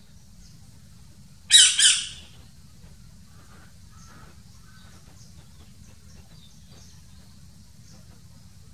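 A parrot gives one loud, harsh double squawk about one and a half seconds in, followed by faint, short chirps.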